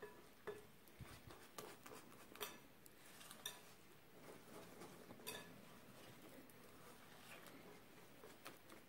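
Faint whisking of thick muffin batter in a glass bowl with a wire balloon whisk: a soft scraping with scattered sharper clicks.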